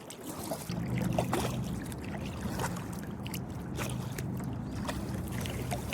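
Kayak paddle dipping into river water, with drips and small splashes from the blade between strokes, over a steady low hum.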